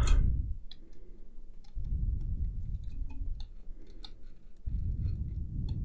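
Scattered light plastic clicks and rubbing as the parts of a Lego Duplo toy train are handled, with two stretches of low rumbling.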